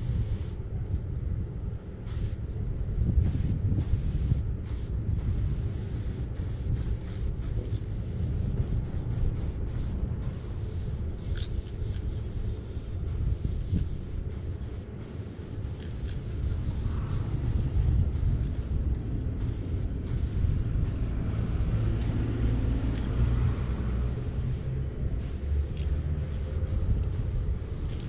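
Aerosol spray paint can hissing in many short bursts with brief breaks as lime-green paint is sprayed, over a steady low rumble.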